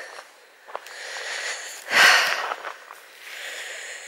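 A hiker's heavy breathing close to the microphone: a run of hard, noisy breaths about a second apart, the loudest about two seconds in. A single light click comes just before the first breath.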